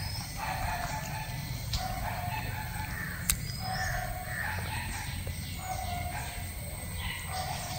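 A bird calling over and over, a short steady fowl-like note repeating about every two seconds, over a steady low outdoor hum; one sharp click sounds a little over three seconds in.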